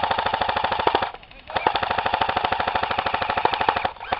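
Airsoft electric gun firing on full auto in two long bursts, a fast even rattle of shots: the first burst stops about a second in, and the second starts half a second later and stops shortly before the end.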